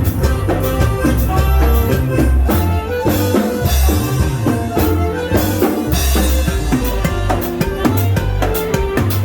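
Dance music with a drum kit and a strong bass line, playing steadily.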